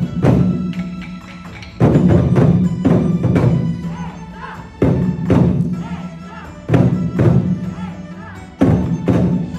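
A group of Chinese barrel drums (tanggu) played together with sticks: a loud unison strike every two to three seconds, each dying away under lighter strokes in between.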